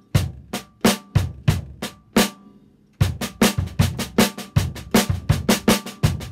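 Drum kit: a snare drum struck with sticks in a steady stream of accented strokes (the 'Train Time' pattern), with a bass drum kick beneath. The playing breaks off a little after two seconds and starts again about three seconds in.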